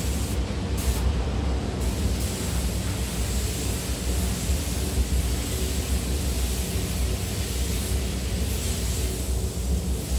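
Paint spray booth ventilation running: a steady rush of air over a low rumble.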